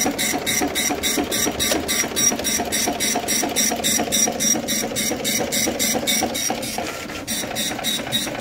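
Oki Pacemark 3410 wide-format dot-matrix impact printer running its self-test print on tractor-fed continuous paper. The print head chatters in a rapid, even rhythm of about four strokes a second.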